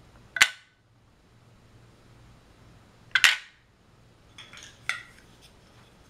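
Two sharp clacks about three seconds apart as plastic toy cargo crates are dropped into a plastic toy truck, followed a little later by a few lighter clicks and knocks of toy pieces being handled.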